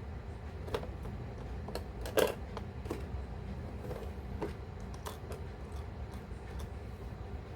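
Scattered small plastic clicks and taps from an action figure and its parts being handled, the loudest about two seconds in, over a steady low hum.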